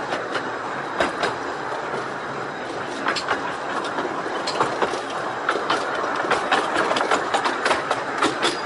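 Wheels of a 15-inch-gauge railway coach rolling along the rails with a steady rumble, punctuated by sharp clicks and clacks over rail joints and pointwork that come more often in the second half.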